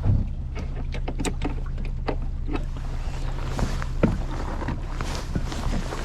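Fishing boat running on the lake: a steady low motor drone with many short knocks from the hull and wind on the microphone.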